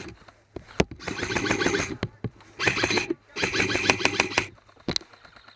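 Airsoft electric rifle firing three fully automatic bursts of rapid, even shots, each just under a second long, with a few single sharp cracks between them.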